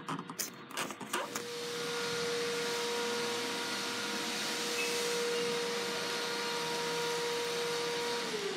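A few clicks, then a small electric motor switches on about a second in and runs steadily with a rush of air and a constant hum. Near the end it winds down, falling in pitch.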